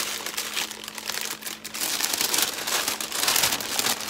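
Striped paper gift bag crinkling and rustling as hands unfold it and open it up, in uneven bursts of handling.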